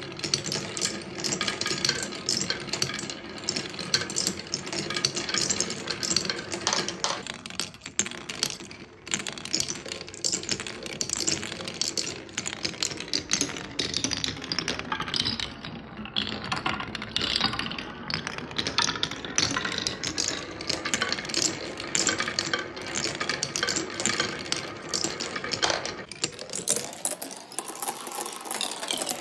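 Glass marbles rolling and clacking down wooden marble-run tracks: a steady stream of small clicks and knocks, with a rising then falling rolling tone near the end.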